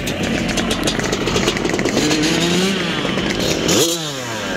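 Vintage motocross bike engines running, one engine's pitch creeping up, then a sharp throttle blip that revs up and drops back near the end.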